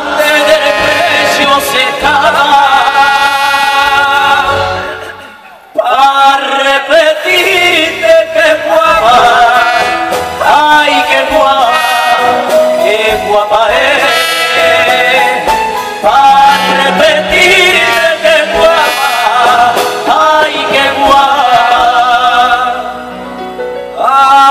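A man singing live into a microphone with a wide vibrato, backed by a band; a long held note fades away about five seconds in, then he sings on in short phrases.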